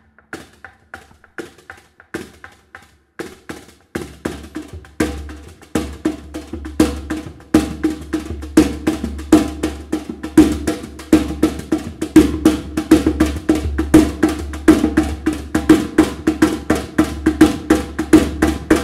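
Percussion music: a fast rhythm of sharp taps, sparse and quiet at first, then denser and louder over a steady low bass from about four seconds in. It is played on a drum struck with a beater.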